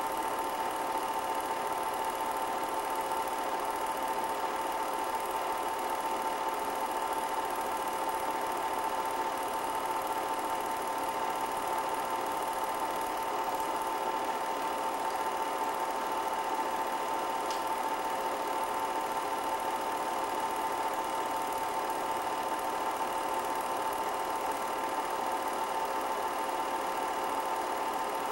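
Film projector running: a steady mechanical whir and clatter with a constant hum that never changes. It is not the race cars on screen.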